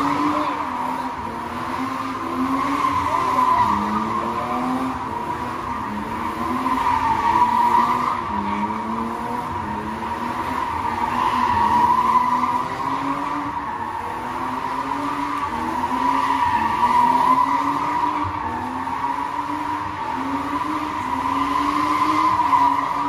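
BMW E36 3 Series convertible doing donuts: the tyres squeal without a break while the engine is held at high revs, its pitch wavering. The sound swells louder about every four to five seconds as the car comes round each circle.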